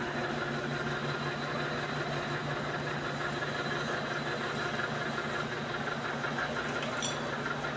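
Electric lathe running steadily, with a diff part turning in its chuck, giving an even motor hum. There is a small click near the end.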